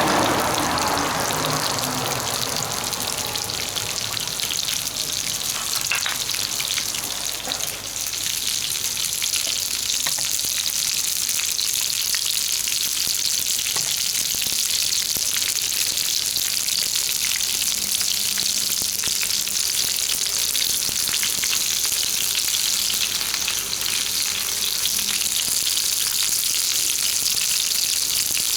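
Jumbo shimeji mushrooms frying in olive oil over a campfire, giving a steady crackling sizzle. A louder surge at the very start dies down over the first couple of seconds.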